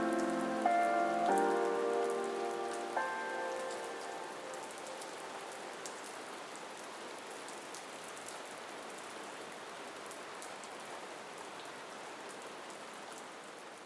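Steady rain falling, with scattered sharp individual drips. A few held music notes ring over it and fade away in the first four seconds.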